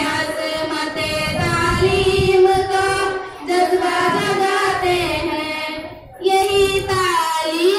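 A group of schoolgirls singing a tarana together through handheld microphones, in long held notes with short breaks between phrases about three and six seconds in.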